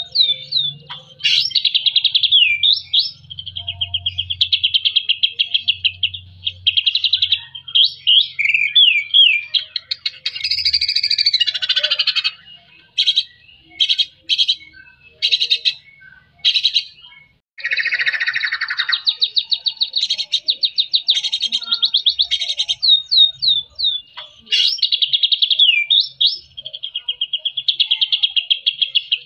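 White-rumped shama singing hard and almost without pause: long fast trills held around one pitch, strung together with quick rising and falling whistled notes, and two harsher, chattering phrases, about a third and about two thirds of the way through.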